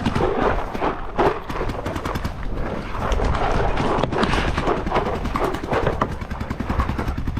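Paintball markers firing in rapid strings of shots, with wind buffeting the microphone underneath.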